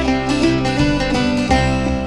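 Background music with plucked strings in a bluegrass style, a banjo or mandolin picking over a steady beat.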